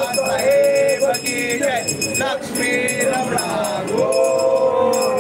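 Group of voices singing a devotional chant with long held notes, accompanied by quick, steady strikes of small metal percussion that stop about halfway through.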